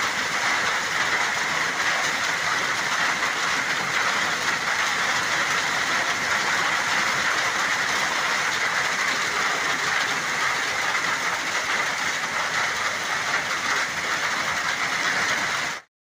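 Heavy rain pouring down hard onto stone steps and wet ground, a dense steady hiss that cuts off suddenly near the end.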